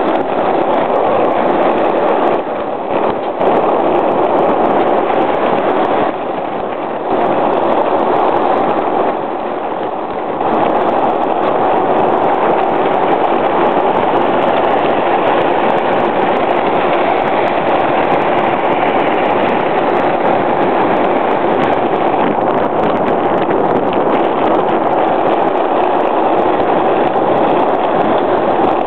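Skateboard wheels rolling fast over asphalt, a steady loud rumble that dips briefly a few times.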